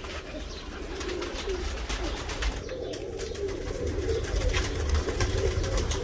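Domestic pigeons cooing in a loft, over a steady low rumble.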